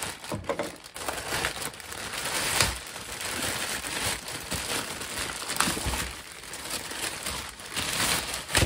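Packaging crinkling and rustling steadily as a mailed package is opened and unpacked, with irregular sharper crackles.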